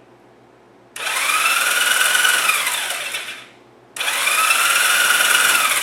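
Honda CB175's electric starter motor spinning the engine over with the spark plugs out, in two bursts of about two and a half seconds each; in each burst the whine rises and then sinks in pitch. With no compression and no spark the engine turns freely without firing, being cranked to get oil to dry parts.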